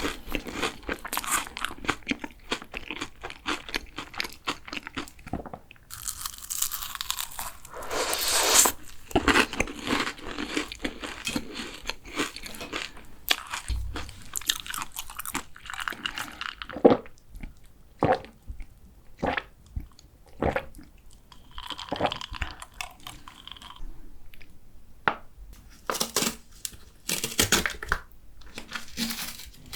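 Close-miked eating of a fresh cream and chocolate croissant: bites crunching and chewing, with many short crackles and clicks.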